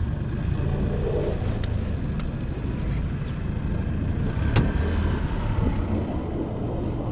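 Boat's outboard motor running steadily with a low rumble, mixed with wind buffeting the microphone, and a few sharp clicks, the loudest a little past the middle.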